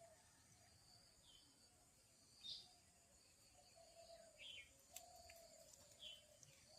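Faint birdsong: a short low call repeated several times, with short high chirps about four times over a steady high hiss.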